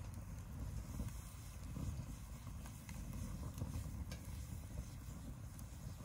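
Bamboo burning in a small metal fire bucket: a low, unsteady rush of flame with light crackling and a few sharp cracks from the burning bamboo.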